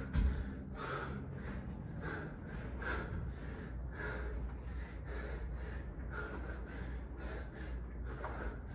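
Rapid, heavy gasping breaths of a man working hard in a workout, between one and two breaths a second, with a single thump just after the start.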